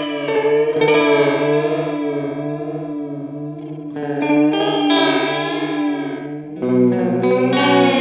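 Electric guitar chords played through an Electro-Harmonix Polychorus pedal, held and ringing with a slow, wavering modulation on the notes. A new chord is struck near the end.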